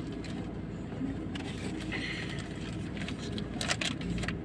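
Steady low hum of a car idling, heard from inside the cabin, with a few light clicks and rustles about three and a half seconds in.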